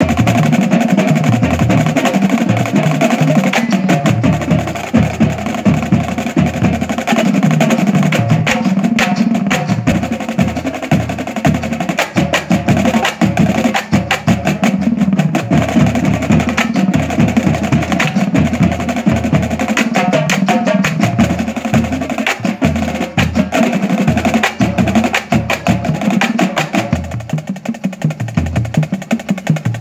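Marching drum line playing together on snare drums, tenor drums and bass drums: fast, dense rhythmic strokes and rolls, thinning briefly near the end.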